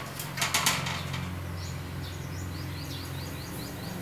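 A few brief scrapes and scuffles in the first second as a puppy wriggles on a tiled floor, then a bird chirping in a quick run of short high notes, over a steady low hum.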